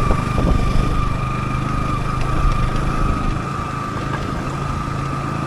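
Yamaha YZF-R15's single-cylinder engine running at steady low revs, with no revving. There are a few faint knocks.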